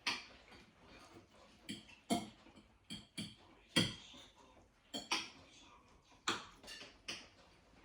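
Cutlery clinking and tapping against plates, a series of light, irregular clicks about every half second to second.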